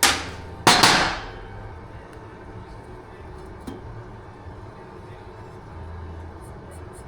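Two sharp metallic knocks about two-thirds of a second apart, each with a short ring, like a freshly deburred exhaust tube being knocked to shake out shavings. A few faint light clicks follow near the end.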